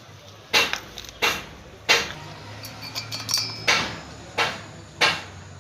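Sharp metallic knocks and clinks as tools and metal parts of a brush cutter engine are worked on, six main strikes spaced unevenly, with lighter ringing clinks in between.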